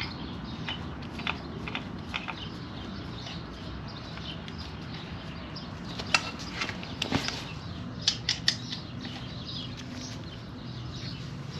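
Scattered light clicks and taps of tools being handled, with a cluster of sharper clicks about six to eight and a half seconds in, over a steady low hum.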